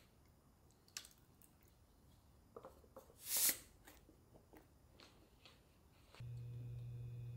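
Faint kitchen handling: a few light clicks of a plastic food-storage container, then its lid pressed shut with a short rush of noise about three seconds in. From about six seconds a steady low hum with faint higher tones sets in.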